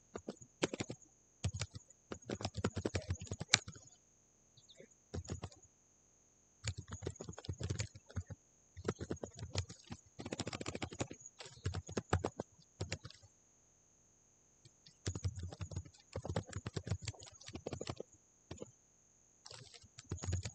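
Typing on a computer keyboard: bursts of quick keystrokes with short pauses between them.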